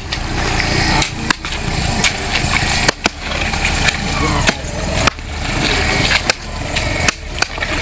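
Wind buffeting an open microphone: a heavy, uneven low rumble broken by frequent crackles and knocks.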